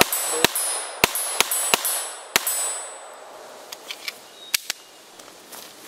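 A Norinco TT Olympia semi-automatic .22 LR pistol fired about six times in quick succession over the first two and a half seconds. After that come a few light clicks as the pistol is handled.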